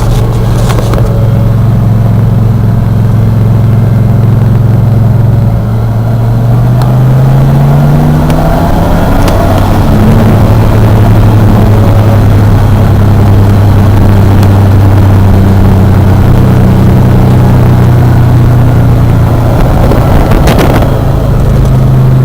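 1991 Ford F-150's 302 V8 running loud. The engine note climbs about six to eight seconds in, drops back, then holds steady. There is a short sharp crackle near the end.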